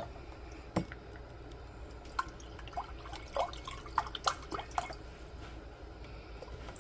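Liquid dripping and plopping in a cluster of short, pitched blips between about two and five seconds in, with a sharp knock just under a second in.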